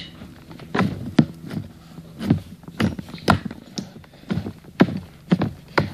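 Hands squishing and poking slime, giving an irregular run of short sharp wet clicks and pops, a few each second.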